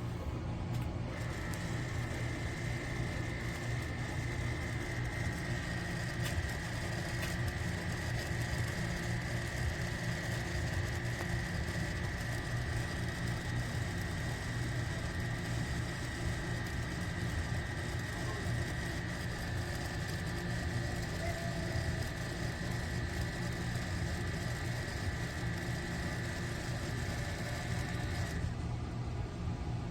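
Keurig K-Iced single-serve coffee maker running a brew cycle: a steady low pump hum with a high whine that starts about a second in and cuts off near the end.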